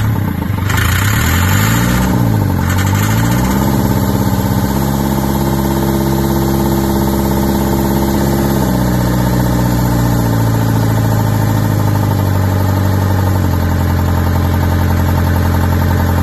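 Case backhoe's diesel engine running. Its speed dips and recovers about two seconds in, rises to a higher steady speed, then drops back in steps to a low steady idle in the last few seconds.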